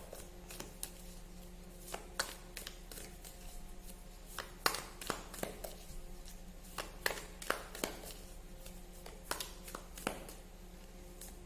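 Tarot cards being shuffled and handled: irregular sharp clicks and snaps of the card deck, over a faint steady hum.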